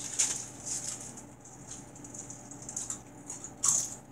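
Dry potato chips rustling and crackling as hands shift through a tubful of them, in small scattered crackles, with one louder crunch near the end.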